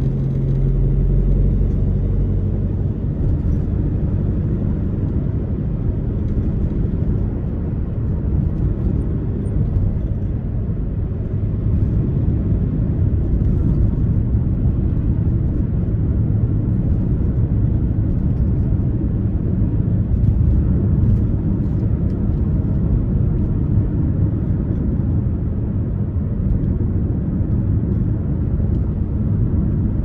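Car driving along a road: a steady low rumble of tyre and engine noise, with a low engine hum that fades about two seconds in.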